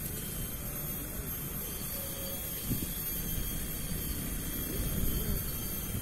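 Outdoor wind buffeting the microphone: a steady low rumble that rises and falls unevenly.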